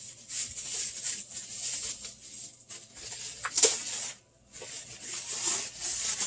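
Paper wrapping rustling and crinkling in bursts as a mystery box is unwrapped, with one louder crackle about three and a half seconds in.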